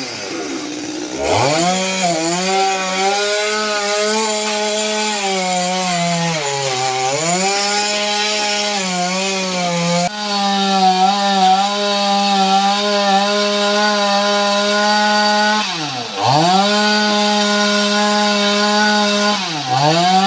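Chainsaw running at high revs while cutting a fallen tree. Its pitch sags under load about seven seconds in, and drops sharply and climbs back as the throttle is let off and reopened near the start, around sixteen seconds in and just before the end.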